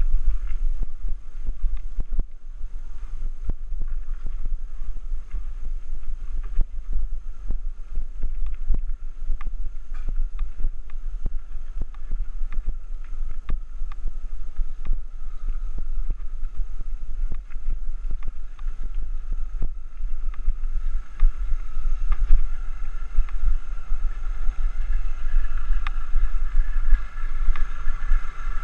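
Wind buffeting the microphone of a moving action camera, with frequent sharp clicks and rattles as it jolts along a rough dirt track. A steady higher hum grows louder over the last few seconds.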